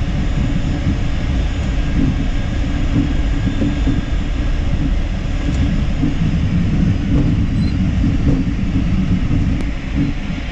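Cockpit noise of an Embraer Phenom 300E taxiing: a steady low rumble from its idling twin jet engines and the wheels rolling over the taxiway, with a few faint knocks.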